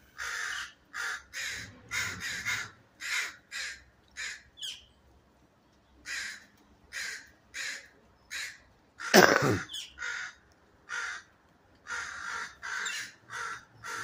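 Crows cawing in a long run of short, harsh calls, several birds calling at once: alarm calls mobbing an owl that has caught a bird. One much louder burst comes about nine seconds in.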